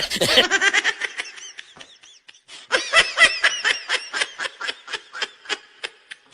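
Quick, high-pitched laughter in short repeated pulses, in two runs with a brief pause about two seconds in.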